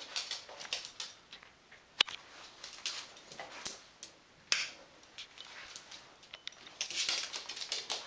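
A dog moving about close by, making irregular short noises, with two sharp clicks about two seconds and four and a half seconds in.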